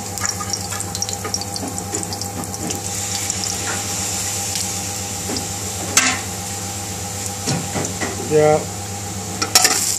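Vegetable oil heating in an aluminium pan on a gas burner, with a faint, steady crackling sizzle over a constant hum. A sharp click comes about six seconds in.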